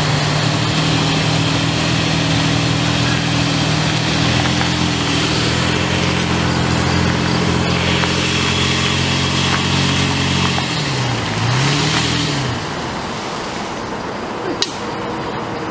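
A 4x4's engine running under load in four-low while dragging a fallen tree hooked to its trailer hitch. Its revs hold steady, dip and rise again about eleven seconds in, then drop away to a quieter level. A single sharp click near the end.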